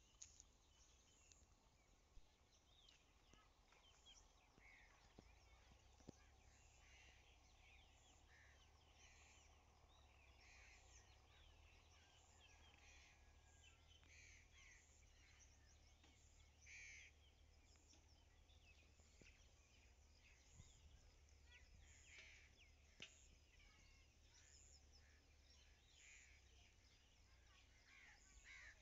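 Faint outdoor ambience: many birds chirping and calling on and off throughout, over a low steady rumble.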